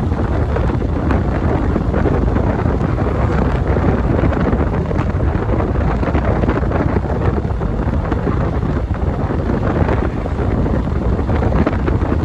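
Heavy wind buffeting the microphone on a moving motorcycle, a steady low rumble of wind noise with no break.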